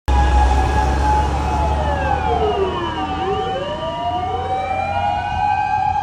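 Several emergency sirens wailing at once, overlapping, their pitches sliding slowly down and back up while one holds a steady high pitch. A low rumble sits under them for about the first three seconds.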